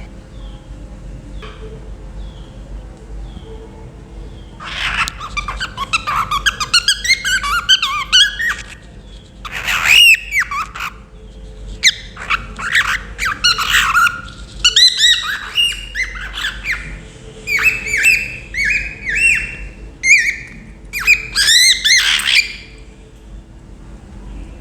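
Pet cockatiel chirping and whistling loudly. A few faint chirps at first, then from about five seconds in long runs of rapid, arching calls that rise and fall in pitch, broken by short pauses.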